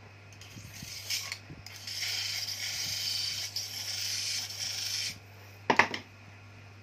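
Electric motor (1400 rpm, 220 V) humming while a screwdriver is pressed against its spinning pulley: a metal scraping builds up, runs for about three seconds and stops, followed by a brief loud squeak.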